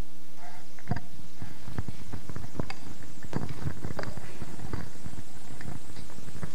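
Irregular thumps and knocks of handheld microphones being picked up and handled, coming through the sound system, beginning about half a second in.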